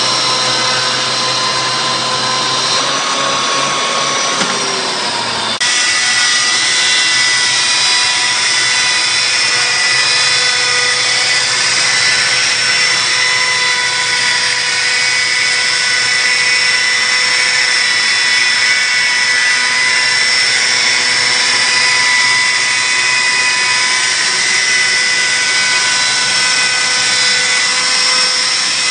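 Snik 10 hp electric chainsaw mill with automatic feed sawing pine: a loud, steady, high-pitched machine whine made of several even tones. The sound shifts abruptly about five and a half seconds in, then holds steady.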